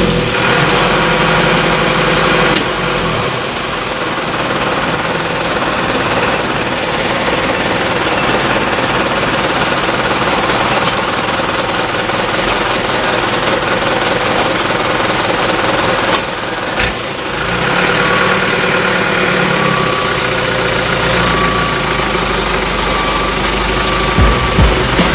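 Radio-controlled Huina dump truck's drive motor and gearbox running steadily under load as its mud-caked wheels churn in deep mud.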